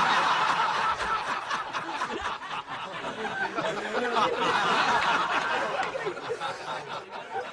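Audience laughing after a joke's punchline, loud at first, swelling again about halfway through, then dying away near the end.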